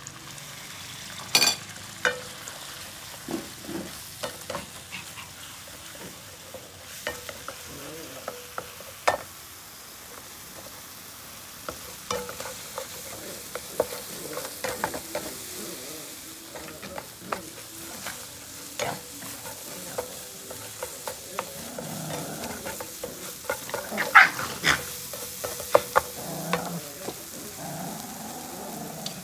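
Food sizzling as it fries in a frying pan on a portable gas burner, with a steady hiss and frequent scrapes and clinks of a metal spoon and spatula against the pan and a plate.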